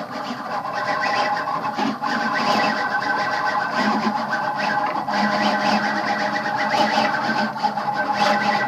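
Homemade plywood CNC router carving a test relief: its stepper motors whine with several held tones that shift in pitch as the axes change moves, over the spindle and the cutter working the wood.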